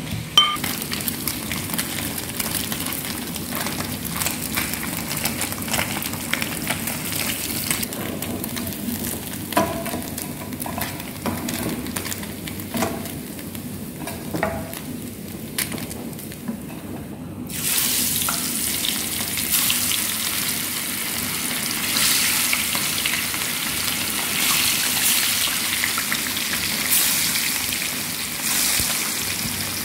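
Small seasoned fish deep-frying in a pan of hot oil, a steady sizzle with a few light clinks in the first half. The sizzle suddenly gets louder and denser a little past halfway.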